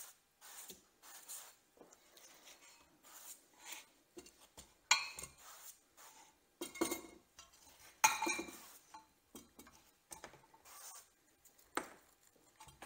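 Short hisses from an aerosol can of high-temperature cooking spray coating seasoned cast iron pie irons. Then the heavy cast iron pie irons clank and ring several times as they are flipped over one after another.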